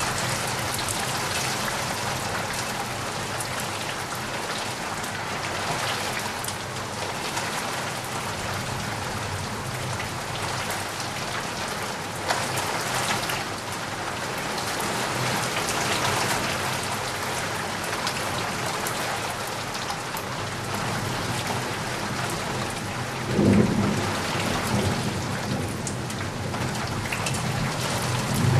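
Steady rain falling, an even hiss, with a low rumble of thunder breaking in a few seconds before the end.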